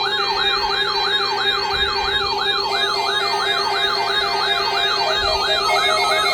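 NOAA weather radio receiver alarms going off, set off by the weekly test signal. Several electronic siren tones overlap: one sweeps up quickly about three times a second, over a higher warble and steady tones.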